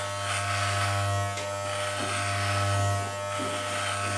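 Wahl Legend electric hair clipper running with a steady low buzz as it is worked over the scalp cutting hair short, the buzz swelling and easing slightly as the blade presses on and lifts.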